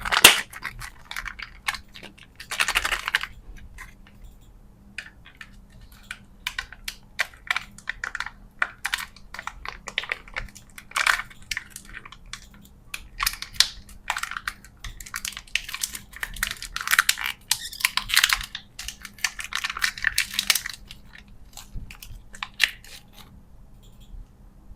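Candy packaging being handled and opened by hand: irregular close-up clicks, taps and crinkling of plastic and wrappers, in short clusters, tailing off near the end.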